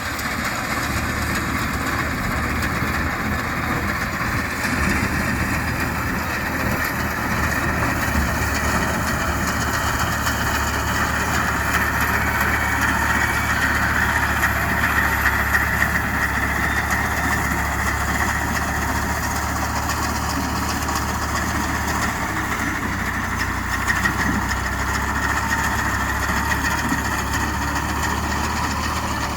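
Fiat 480 diesel tractor engine running steadily while driving a front-mounted wheat reaper, a constant low hum with a mechanical rattle over it.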